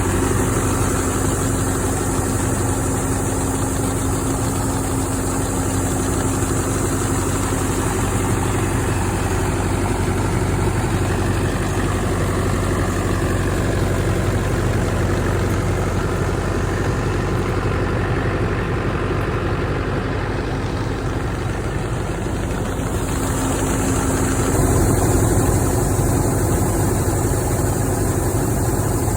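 Old Clayson M122 combine harvester's engine running steadily, with a slight swell in level about 25 seconds in.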